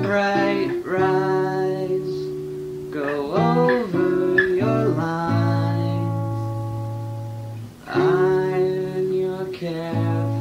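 Acoustic guitar on a lo-fi demo cassette, chords struck every second or few and left to ring out and fade.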